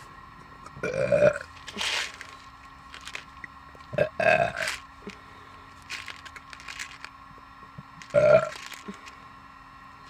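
A person burping: three loud burps about a second in, about four seconds in and about eight seconds in, with short breathy sounds between them.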